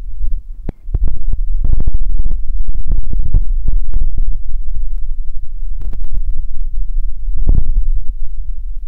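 Loud low rumbling and irregular thumps on a phone's microphone, the kind of buffeting and handling noise picked up when a phone is held and moved outdoors; no sound from the dog is heard.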